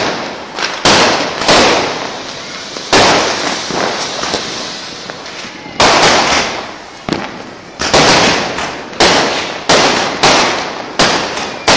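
Diwali firecrackers and fireworks going off: a string of sharp bangs, about one a second and sometimes two in quick succession, each fading into a crackling hiss.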